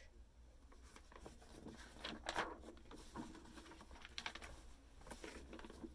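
Paperback picture book being handled: the cover opened and pages turned, giving faint paper rustles and light ticks, a little louder about two seconds in.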